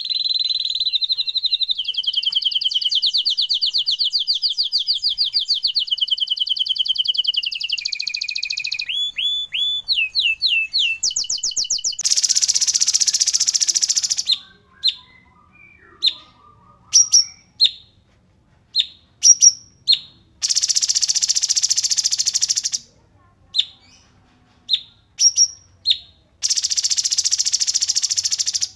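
Recorded songbirds singing: a fast, even trill of repeated falling notes for the first several seconds, then a few slurred whistles. After that come three long harsh buzzing bursts, each about two seconds, with short sharp chirps between them.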